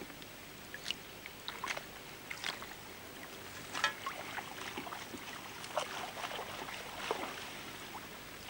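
Water sloshing and splashing in a plastic bucket holding live caught fish, with irregular small splashes.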